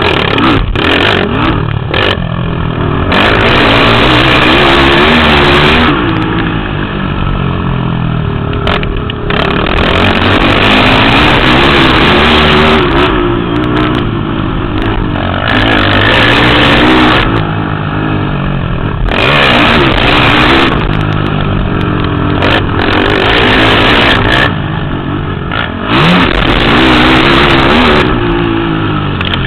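Motocross racing quad (ATV) engines revving loudly, pitch rising and falling over and over as the riders go to full throttle and back off every few seconds.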